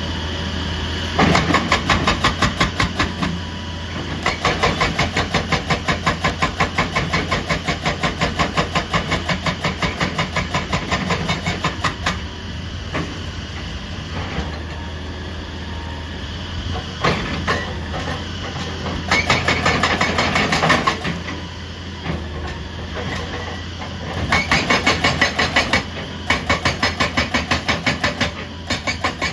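Heavy excavator's diesel engine running steadily, with several bouts of rapid, evenly spaced pounding strokes from its work on rock.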